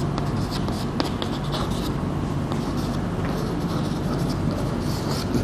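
Chalk writing on a blackboard: light scratching strokes and taps of the chalk tip as words are written, over a steady low background hum.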